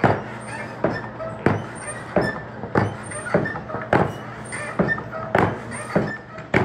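Coal forge's air supply being worked by hand while the iron heats: a regular knock with a short creak about every two-thirds of a second, over a low steady hum.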